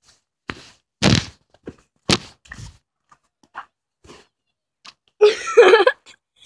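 A few sharp knocks and thumps of a phone being jostled and handled while its holder runs, the loudest crack about two seconds in, then a short wordless vocal cry about five seconds in.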